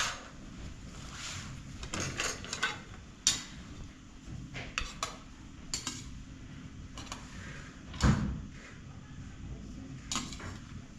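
Irregular clinks and knocks of hard objects being handled and set down, with one heavier thump about eight seconds in, over a steady low hum.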